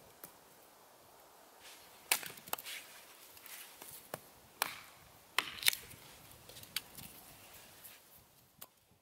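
Small hatchet chopping a short log on a stump chopping block, splitting it: about half a dozen sharp, uneven chops, the loudest about two seconds in and a close pair a little past the middle.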